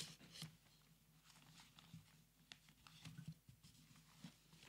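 Near silence: room tone with a low hum and a few faint clicks.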